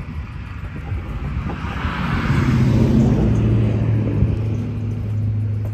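A vehicle passing by: engine and road noise swell to a peak about halfway through, then fade slowly, with a steady low hum lingering.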